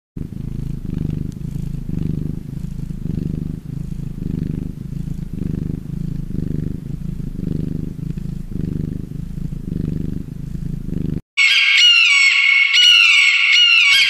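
Domestic cat purring: a low rumble that swells and fades in an even rhythm with each breath, for about eleven seconds. Near the end it cuts off and a bright, high-pitched sound with repeated falling notes begins.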